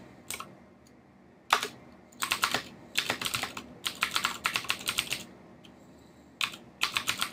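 Computer keyboard typing in quick runs of keystrokes, with short pauses about a second in and again about five seconds in.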